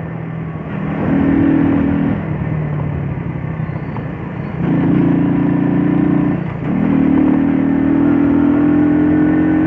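Shineray Jet 50cc moped's small single-cylinder engine running while riding. Its pitch and loudness rise three times and ease off in between as the throttle is worked.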